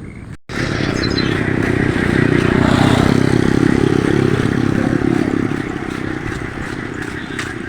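A motor vehicle passing close by: the engine noise swells to a peak midway and then slowly fades. It begins just after a brief cut-out about half a second in.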